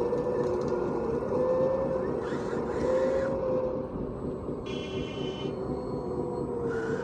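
Radio-controlled construction model running, with a steady whine that wavers in pitch. Two short hissing bursts come about two and a half seconds in and near the end, and a brief higher tone sounds around five seconds in.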